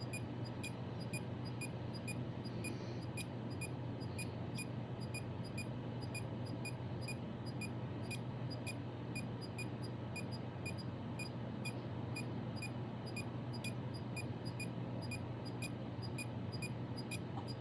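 Faint, regular ticking, about two to three ticks a second, over a steady low hum.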